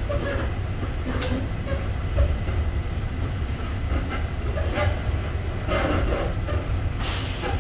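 New York City subway train running along the track, heard inside the car: a steady low rumble with scattered wheel clicks over the rails, a sharp clack about a second in, and a short loud burst of hiss near the end.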